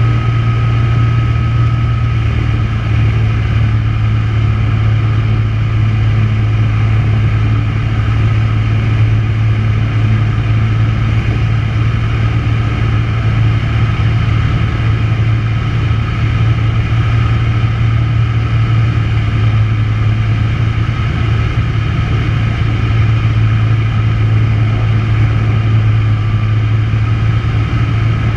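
Tecnam P92 light aircraft's engine and propeller droning steadily in flight, heard inside the cockpit, a constant low hum under an even rush of noise.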